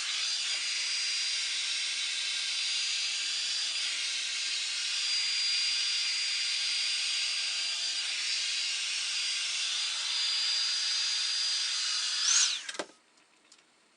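Revlon One Step Volumizer hot-air brush dryer running, a steady high motor whine with rushing air. Near the end its pitch lifts briefly, then it winds down and stops as it is switched off.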